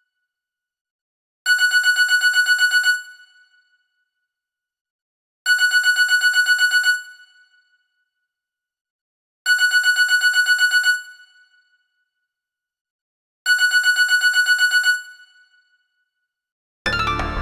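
Mobile phone ringtone imitating a classic telephone bell: four rings, each a rapid trill of about a second and a half that dies away, repeating every four seconds. Just before the end a different melodic ringtone begins.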